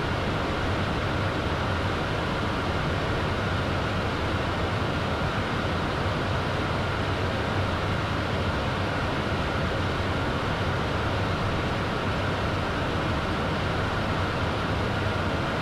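Steady cockpit noise of a twin-turbofan Beechcraft Premier 1A business jet in descent: an even rush with a low hum underneath.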